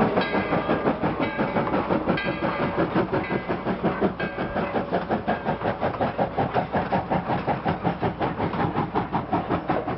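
Narrow-gauge steam locomotive under way, its exhaust chuffing in a steady rhythm of about three beats a second. High tones come and go over the first few seconds.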